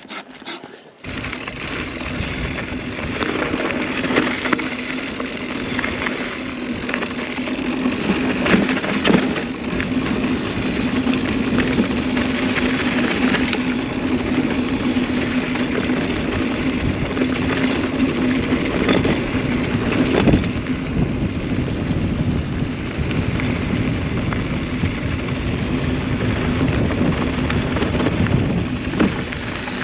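Mountain bike rolling fast over a loose dirt trail: continuous tyre and trail noise with a steady hum and scattered knocks and rattles from the bike.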